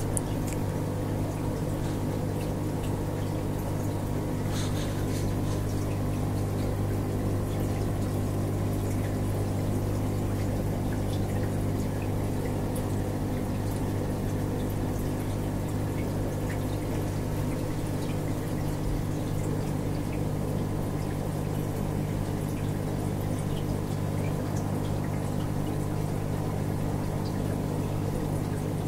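Aquarium pump running: a steady low hum with water running through the tank.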